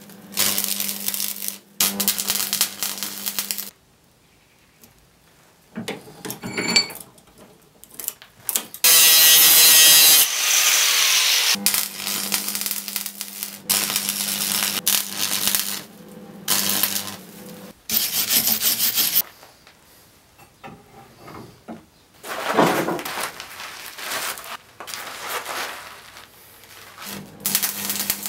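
Stick (arc) welder crackling and sizzling in repeated short runs as the electrode arc is struck and broken, welding the edge of a stacked steel billet for pattern-welded steel. A low steady hum fills the pauses between runs.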